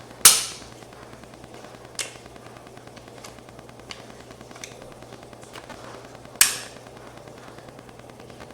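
Metallic clicks and clacks of a Glock 17 Gen 5 pistol being field-stripped: two loud, sharp clacks with a short ring, about a quarter second in and near the end, with a few fainter clicks between.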